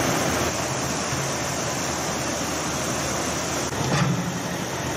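Excavator engine running steadily over the broad, even rush of floodwater in the creek, with a brief louder sound about four seconds in.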